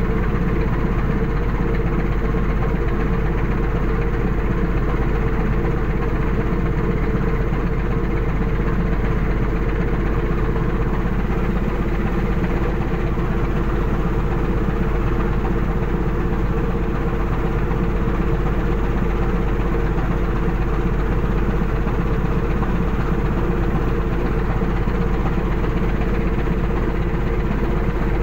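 Fishing vessel's engine and deck machinery running with a steady, unchanging drone.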